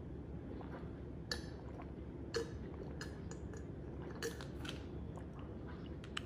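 A person swallowing a large tablet with water: a few short, soft gulping and mouth sounds over a steady low background hum.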